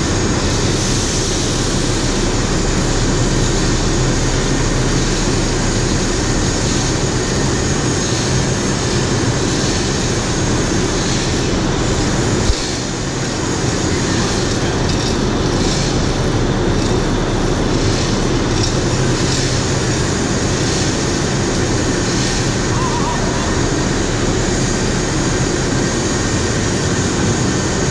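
Steady, loud machinery rumble and hiss with a low hum, the running noise of heavy equipment in the turbine hall. A single knock sounds about twelve seconds in.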